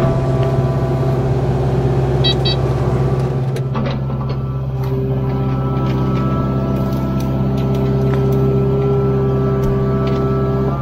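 Kubota KX057-4 excavator's diesel engine running steadily, with two short high beeps about two seconds in and a few knocks near the middle.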